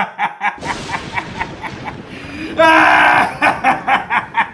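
A man laughing wildly in rapid, evenly spaced bursts, about five a second, breaking into a loud, shrieking laugh about two and a half seconds in.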